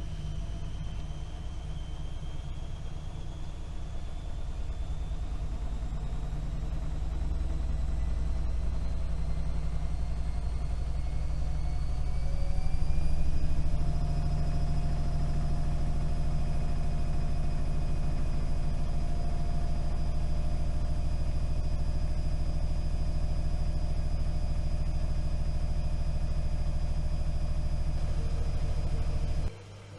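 AEG Öko-Lavamat washing machine spinning up: the motor whine rises steadily in pitch for about fourteen seconds, then holds steady at spin speed, and drops away suddenly near the end. The spin is limited to 1000 rpm instead of 1600 because a non-original motor is fitted.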